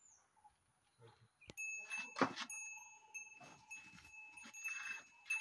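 A young calf's bleating call and the small bell on a calf's neck ringing steadily, starting about one and a half seconds in after a near-silent start.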